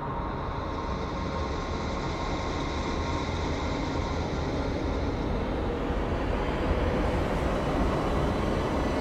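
A steady low rumble that slowly grows louder.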